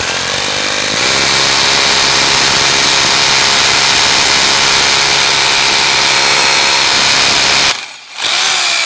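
Bosch GBH 2-24 D rotary hammer running loud and steady in hammer-drill mode, boring into monolithic concrete. Near the end it stops briefly and starts again.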